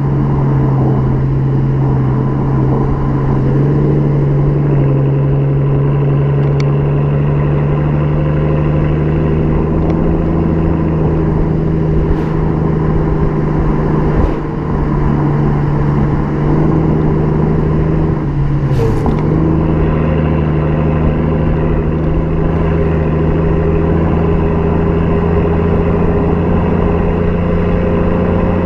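Mercedes CL 600 V12, tuned by RENNtech, idling steadily through its exhaust, with one brief dip in engine speed about two-thirds of the way through.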